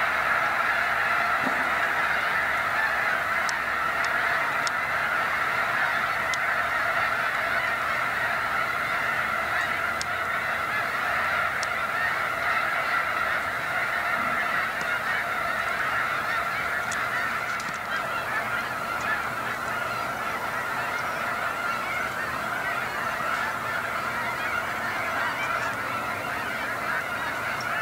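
A large flock of snow geese calling together, their high honks merging into one dense, unbroken clamor that eases slightly about halfway through.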